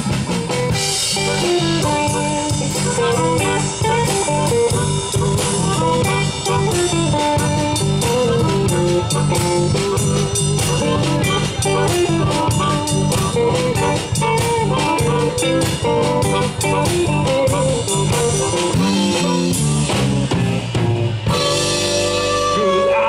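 Live blues band playing an instrumental break: electric guitar and harmonica over a drum kit keeping a steady beat.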